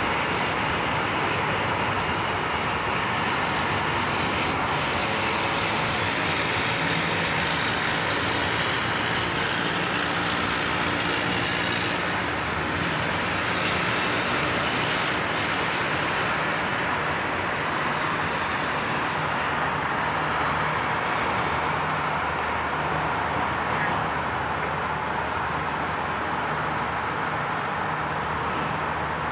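Diesel subway work train passing on the elevated tracks, mixed with road traffic: a steady engine hum under a dense, even hiss of wheels, rails and traffic that stays level throughout.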